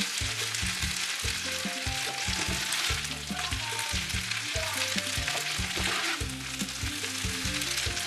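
Short rice noodles sizzling in hot oil in a frying pan as they are stirred and lifted with a spatula. Background music with a repeating bass line plays underneath.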